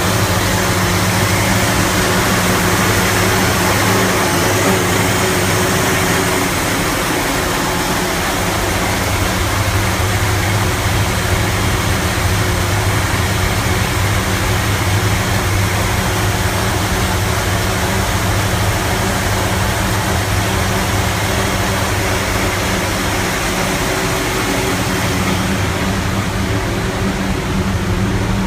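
Engine idling very roughly, a steady low running sound that continues without a break.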